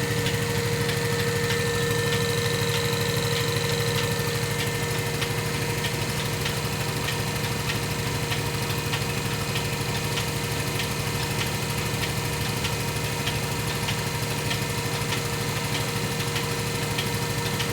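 Milking machine running steadily while milking a cow: the steady hum of its vacuum pump, with a regular clicking of the pulsator.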